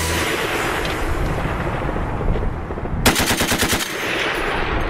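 M2 Browning .50-calibre heavy machine gun firing in short bursts. A burst ends just as the sound begins and its report dies away, then a second burst of about eight rapid shots comes about three seconds in.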